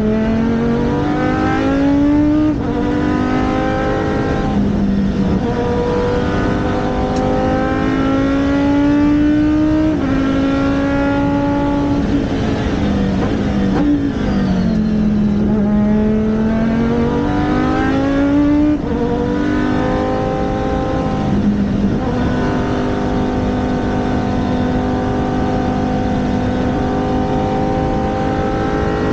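Racing car engine driven hard through the gears: its pitch climbs and drops sharply at each upshift several times, sinks through a slowdown around the middle, then climbs again and holds a long steady high pitch near the end.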